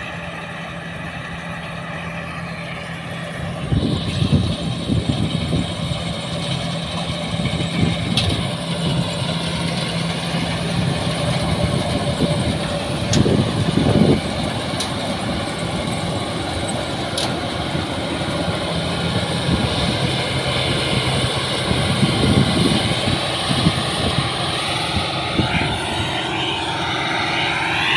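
Deutz-Fahr M 1202 combine harvester's diesel engine running steadily while it cuts standing green grain. It grows louder about four seconds in as the machine comes close.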